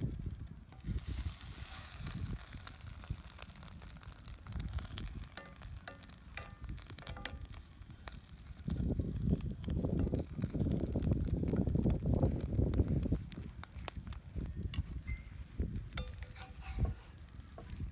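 Food sizzling in a cast iron pan, with wind buffeting the microphone in a deep rumble that gusts up loudest about halfway through.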